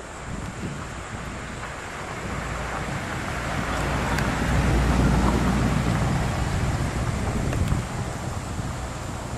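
1955 Dodge Royal Lancer with its factory "Red Ram" V8 and stainless steel exhaust driving past at low speed. The engine and exhaust grow louder as it comes closer, peak about halfway through, then fade as it moves away.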